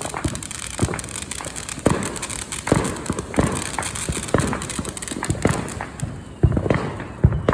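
Fireworks going off: sharp pops and bangs at irregular intervals, roughly one a second, over a fainter crackling, with the loudest bangs near the end.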